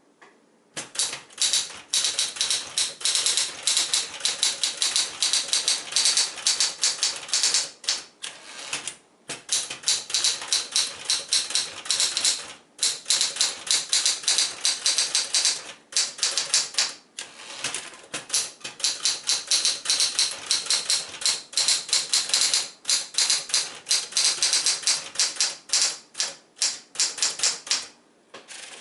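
Smith-Corona Galaxie Deluxe manual typewriter being typed on fast, with rapid keystrokes in long runs broken by a few short pauses.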